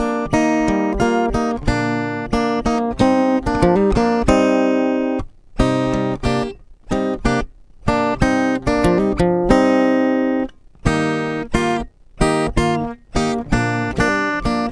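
Instrumental background music played on a plucked string instrument, a run of picked notes and chords with several brief breaks.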